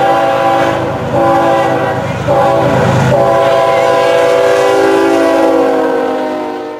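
Multi-note air horn of a CSX freight locomotive sounding a chord in several blasts, breaking about a second in and again after two and three seconds, then held long and fading near the end. Beneath it the low rumble of the approaching locomotive and its doublestack container cars.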